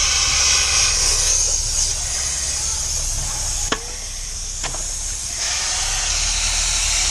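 Fire hose spraying a high-pressure jet of water, a steady loud hiss. Two sharp knocks sound about a second apart midway through.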